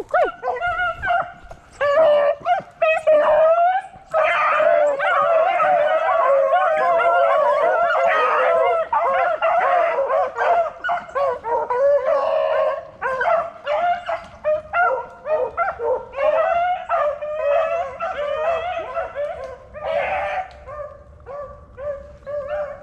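A pack of beagles baying together in full cry while running a swamp rabbit, many voices overlapping. The chorus is thickest in the first half and breaks into scattered bays and yelps toward the end.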